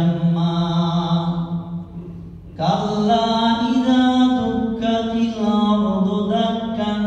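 A male voice reciting the Quran aloud in melodic, drawn-out chanted phrases, as an imam leads the Isha prayer. He pauses for a breath about two seconds in, then begins a new phrase that climbs higher in pitch.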